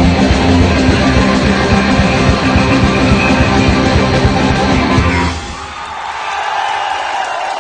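Rock band playing live at full volume, with distorted electric guitar and a drum kit, stopping abruptly on a final hit about five seconds in. After the stop, crowd noise remains with a lingering steady tone.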